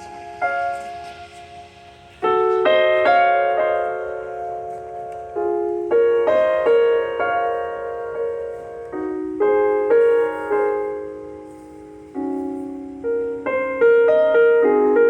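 Piano playing slow chords, each struck and left to ring, in phrases a few seconds long: music for a bridal processional.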